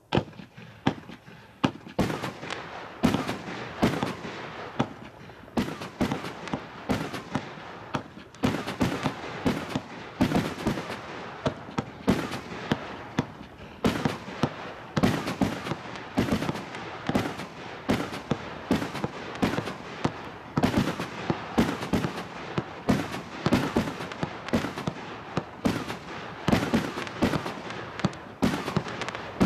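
A 50-shot, 50 mm fireworks cake (Shellscape SCB8040, gold sword with blue pistil) firing shot after shot. Sharp reports come about one to two a second, starting about a second in, with a steady hiss between them.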